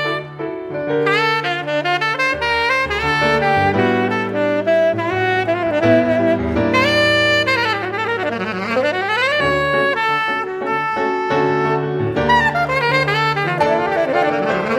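Background music: a jazz tune with a saxophone lead over sustained bass notes, with a swooping run down and back up about eight seconds in.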